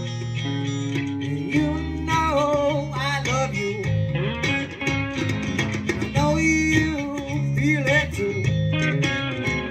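A live band playing amplified through PA speakers: guitar leading with bending notes over a steady bass line.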